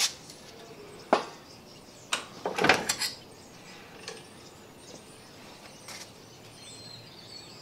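Sharp metal clanks and knocks from an old sheet-metal bending brake as an aluminium bracket is set into it and bent, with a cluster of clanks around three seconds in and lighter knocks after it.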